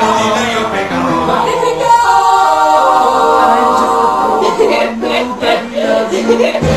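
Several voices singing together without instruments, holding long steady notes through the middle before breaking into shorter, choppier sounds near the end.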